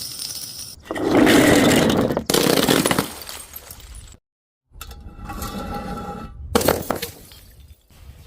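Glass shattering and breaking in a string of short cut-together takes: a loud crash about a second in and another a second later, then, after a brief cut to dead silence, more cracking and clinking with one sharp crash about two-thirds of the way through.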